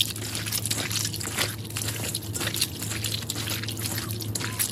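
Wet squelching and splashing of hands kneading and rubbing raw chicken gizzards in a wet stainless steel colander, in quick irregular bursts.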